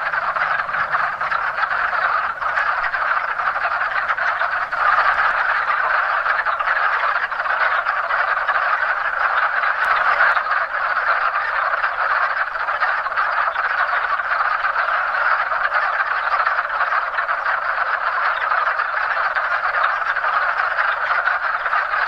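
Hundreds of male wood frogs calling together in one steady, unbroken chorus: their spring mating call.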